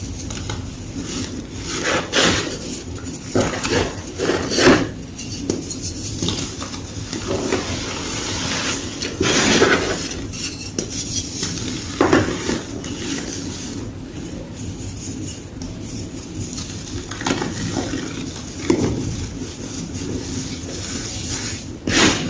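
Block of gym chalk crunching and crumbling, in irregular crunches a second or more apart, over a steady low background hum.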